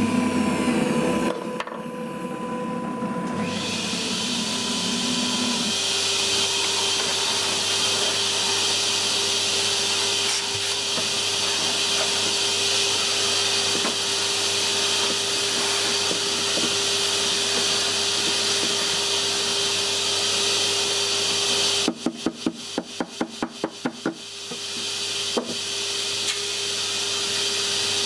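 CNC router spindle running steadily while the cutter mills, a constant hiss with a steady hum under it. About three quarters of the way in, a quick run of about ten sharp clicks.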